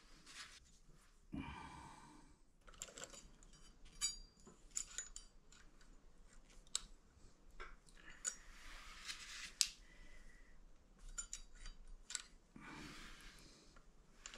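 Light metallic clicks, scrapes and rubbing as brake pads and their retaining pin are fitted by hand into a motorcycle's front Brembo brake caliper. Scattered sharp clicks come through, with short stretches of scraping about a second and a half in, near the middle and near the end.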